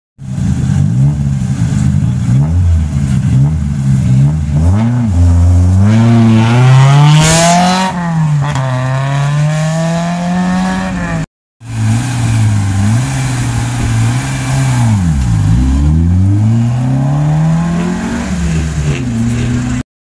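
Competition car engines at full throttle on a hill climb, revving up and dropping sharply in pitch at each gear change. About seven seconds in, a car passes close by and its note falls as it goes. After a cut, another engine revs up and down through its gears.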